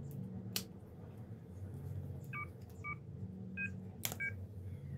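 Smartphone dial-pad key tones: four short two-tone beeps in the second half as keys on the phone's dialer are pressed while it is squeezed into a clear plastic case. Two sharp clicks of the case snapping onto the phone, one about half a second in and one near the end.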